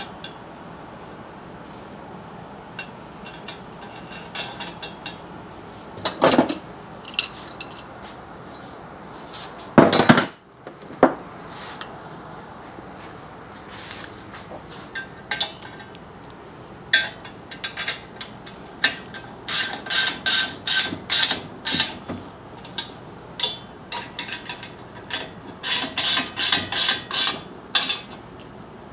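Steel wrench and bolts on the steel tube of an engine stand being assembled: scattered metal clinks, one loud ringing clank about a third of the way in, then a quick run of clicks, two or three a second, near the end as a bolt is worked with the wrench.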